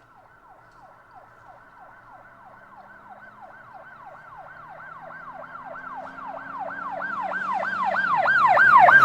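Emergency-vehicle siren in a fast yelp, each sweep falling in pitch about three times a second, growing steadily louder as if approaching.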